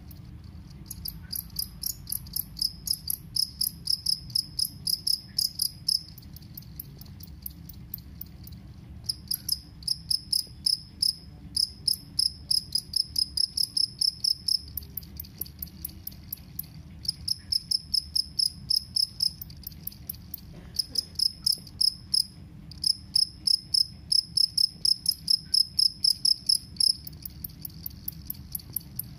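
Male two-spotted field cricket (jangkrik kalung) stridulating: loud, shrill chirps about four a second, in bouts of several seconds separated by short pauses.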